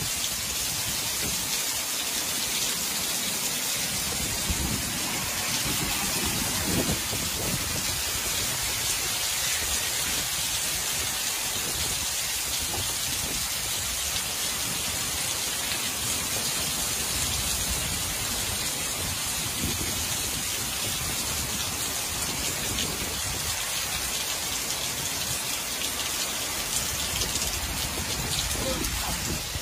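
Hail and heavy rain falling steadily in a thunderstorm: a dense, even hiss of hailstones and raindrops pelting down.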